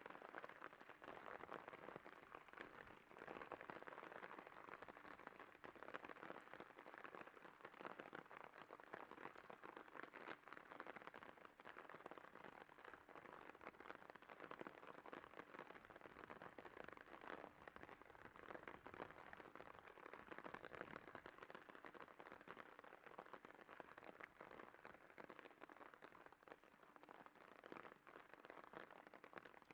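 Faint, steady hiss of noise with fine crackling all through it, like rain on a surface.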